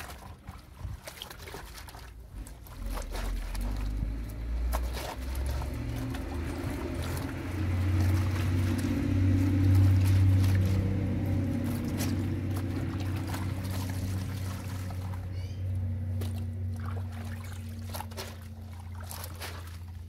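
Wet T-shirts being scrubbed and handled by hand in a concrete laundry sink: water sloshing and trickling with small splashes and knocks. Underneath, a low rumble swells toward the middle and fades by the end.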